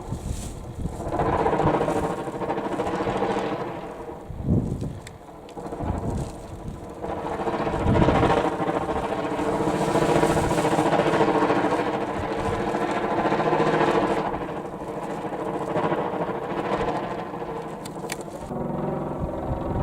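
A kite buzzing in strong wind: a steady, many-toned hum that swells and fades with the gusts.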